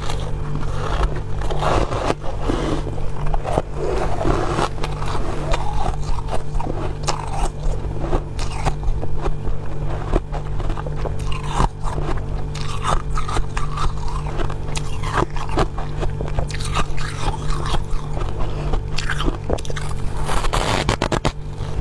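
Close-miked biting and chewing of powdery freezer frost: dense, continuous crunching with many sharp clicks, over a steady low hum.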